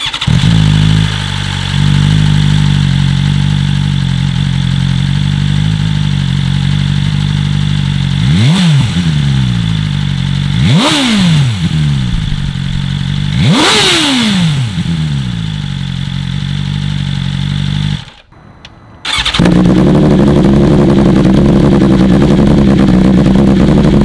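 2020 BMW S1000RR inline-four on its stock exhaust, warm, idling with three quick revs that rise and fall a couple of seconds apart. After a short break near the end it idles steadily, slightly louder, on an Austin Racing GP1R full exhaust system with Inconel headers, with the engine cold.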